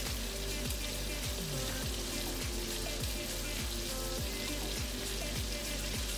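Background music with a steady deep bass beat and a simple melody, over the steady hissing sizzle of pork chops frying in oil in a pan.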